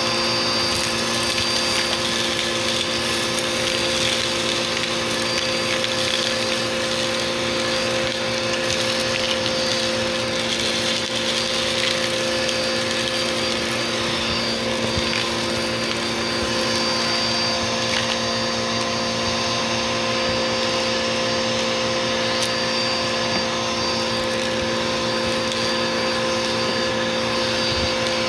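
Vacuum cleaner running steadily, its motor giving a constant hum and whine over the rush of suction, with faint scattered crackles of crunchy debris being picked up.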